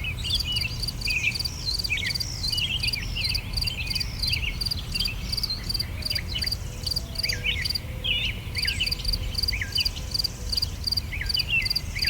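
Small birds chirping and singing in many short rising and falling calls, over an insect chirping in an even, rapid pulse that drops out for a few seconds in the middle. A low rumble sits underneath.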